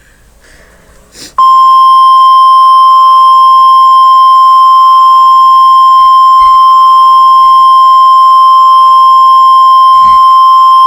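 National Weather Service 1050 Hz warning alarm tone of an emergency alert: a single loud, steady, high-pitched beep that starts about a second and a half in and holds without a break. It signals that a warning message is about to be read.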